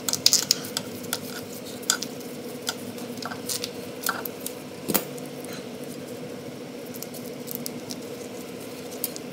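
Pliers and steel safety wire being worked through bolt heads: a string of small clicks and ticks of metal on metal, densest in the first second or so, with one sharper click about five seconds in. A faint steady hum runs underneath.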